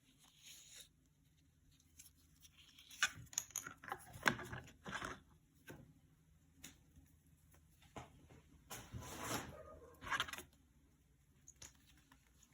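Faint rustling and clicking of packaging and small parts being handled, in two short busy spells: once about three seconds in and again near nine seconds.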